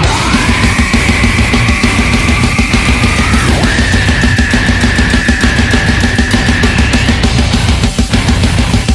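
Brutal death metal: fast drumming and low, heavy distorted guitars. A high held note slides up at the start, steps down slightly about three and a half seconds in, and stops about seven seconds in.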